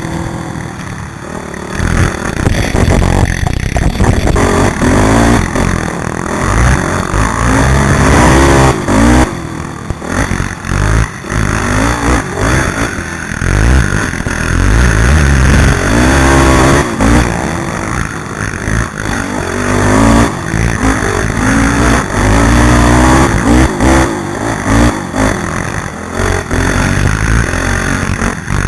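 Sport quad (ATV) engine revving hard and rising in pitch again and again, with the throttle briefly dropping off and picking back up several times. Heavy wind rumble on the helmet-mounted microphone runs underneath.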